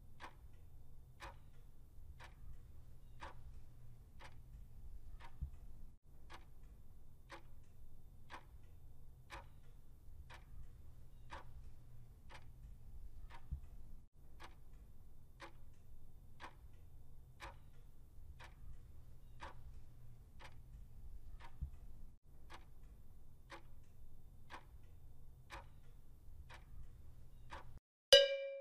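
Countdown-timer clock ticking, about one tick a second, over a faint low hum. Near the end it stops and a single short, bright ding sounds as the answer is revealed.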